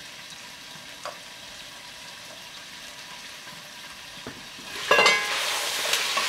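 Broccoli rabe stems frying in oil inside a covered enameled cast-iron Dutch oven, a muffled steady sizzle. About five seconds in the heavy lid clanks as it is lifted off, and the sizzle turns loud and bright.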